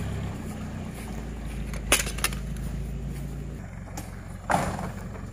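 Motor vehicle engine running with a steady low hum that changes about two-thirds of the way through, under a few sharp knocks: two close together near the middle and a louder one near the end.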